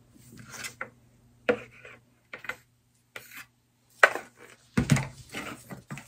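Wooden paint stir stick scraping and knocking against the inside of a plastic paint bucket in a string of short, uneven strokes, with a heavier thump a little before five seconds in.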